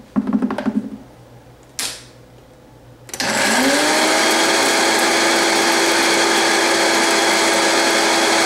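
A brief rattle and a knock, then about three seconds in a Vitamix blender's motor starts up, rises quickly in pitch and runs loud and steady, grinding popped popcorn into a fine flour.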